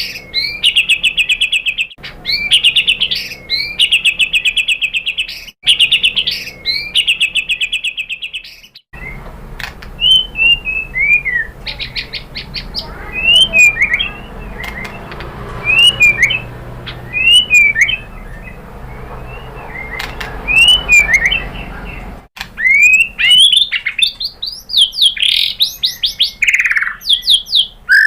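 White-rumped shama (murai batu) song. For the first third it repeats rapid buzzy trills of about a second each. After a cut it gives short scattered whistled chirps over a steady hiss, and near the end a louder run of quick rising and falling whistles.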